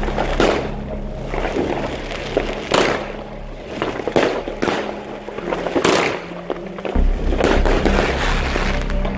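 Background music with a steady bass over the bangs of a Weco 'Tiger & Dragon' 21-shot fireworks battery firing: a series of sharp bangs at uneven intervals as its shots launch and burst.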